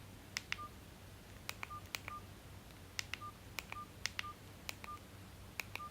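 Mini flip phone keypad being pressed repeatedly while scrolling through menus. The keys click, and most presses are followed by a short, high keypad beep, roughly eight to ten times, irregularly spaced.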